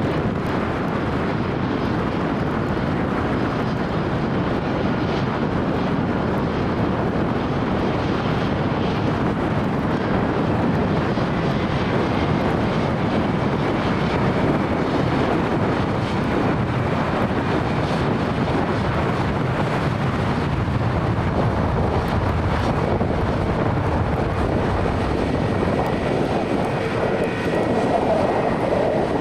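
Airbus A321neo jet engines running at low taxi thrust close by, a steady rushing noise. A faint whining tone comes in over the second half.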